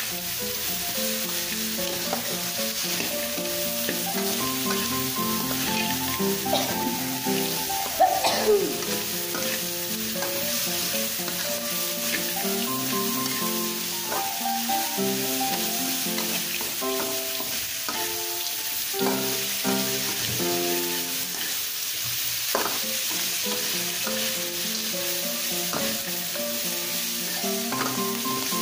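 Metal spatula stirring and scraping a tempeh, anchovy and peanut mixture in a wok as it sizzles in its sugary chili coating, over background music. About eight seconds in, a person sneezes once, loudly.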